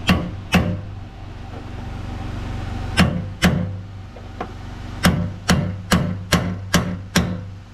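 Mallet striking a metal punch, about ten sharp blows: two near the start, two about three seconds in, then a run of six at roughly two a second, driving the fuel pump module's lock ring round to close it on the tank. A steady low hum runs underneath.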